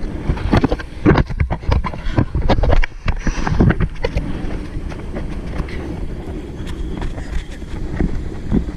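Wind buffeting an action camera's microphone as a steady low rumble. For the first three seconds it is broken by a quick run of splashes and knocks as people wade through shallow surf.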